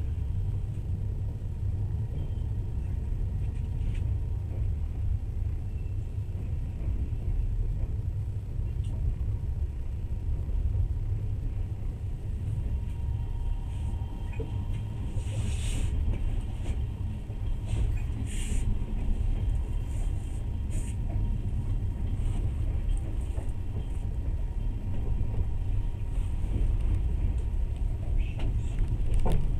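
Steady low rumble of a long-distance passenger train rolling slowly, heard from inside the carriage, with a couple of short hisses about halfway through.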